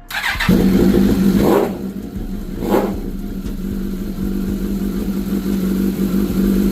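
Suzuki GSX-R1000 inline-four sport-bike engine starting on its new fuel pump. It cranks briefly and catches about half a second in, is blipped twice with quick revs, then runs steadily at idle.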